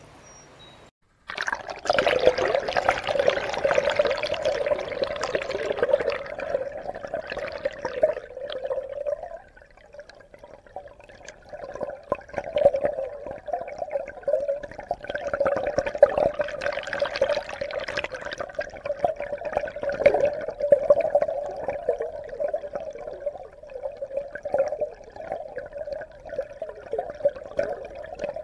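Water rushing and gurgling as picked up by a submerged camera. It starts abruptly about a second in, eases off briefly near the middle, then goes on.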